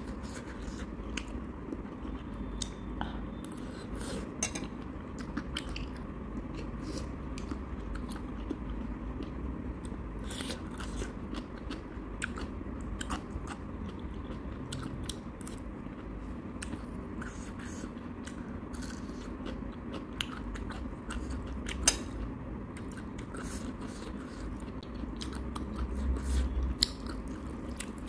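A person eating instant ramen noodles close to the microphone: slurping and chewing with many small wet mouth clicks, and now and then a clink of metal chopsticks or a spoon against the bowl, one sharper than the rest a little past two-thirds of the way through.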